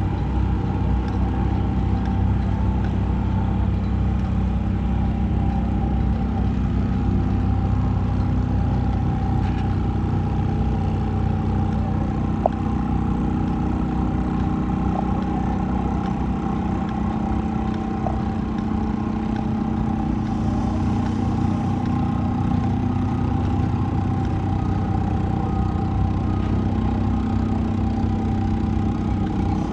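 An engine running steadily at idle, its drone holding an even pitch, with one sharp click about twelve seconds in.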